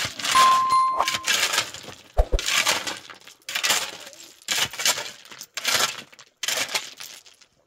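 Rough scraping, crunching strokes about once a second, dying away near the end. A short clear ringing ding sounds about half a second in.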